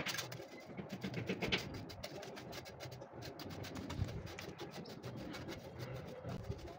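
Steel trowel scraping and tapping over a sand-mortar bed in quick repeated strokes, with birds cooing in the background.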